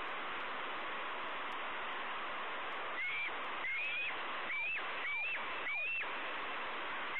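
Juvenile bald eagle calling from the nest: a run of about five short, high calls starting about three seconds in, over a steady hiss.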